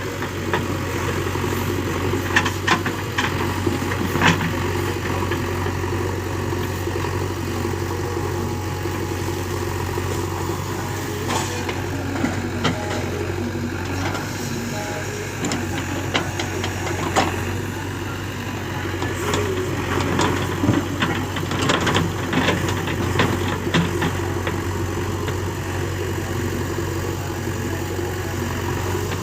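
Diesel engine running steadily at a constant speed, with scattered sharp knocks and clatter over it.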